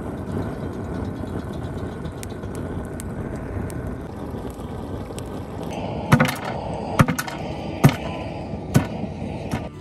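A steady rushing noise, then a heavy knife chopping into a singed sheep's head on a wooden board: four hard blows about a second apart in the second half.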